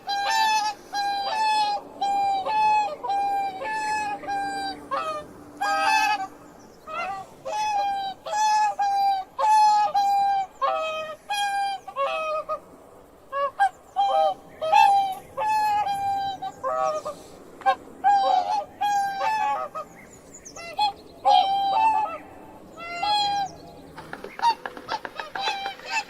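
Swans honking: a long run of short, nasal calls, several a second, overlapping at times as if from more than one bird, with brief pauses between bouts.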